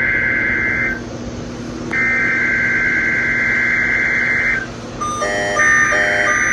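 Emergency Alert System SAME header: a buzzy, warbling digital data tone stops about a second in, sounds again from about two seconds to four and a half, and starts a third time near the end. With the third burst comes a lower beeping that pulses about twice a second, with a faint steady hum underneath.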